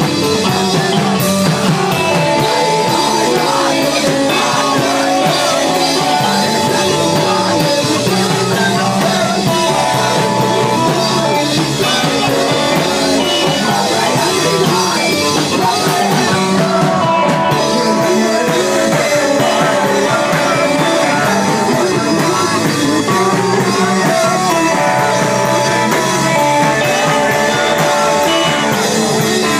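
Live emo rock band playing loud, with electric guitars, bass and drum kit, and singing.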